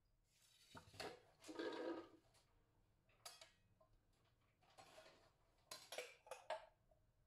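Faint, scattered clinks and rustles of peeled chickpeas being handled and tipped from a glass bowl into a glass blender jar, with a cluster of short clicks near the end.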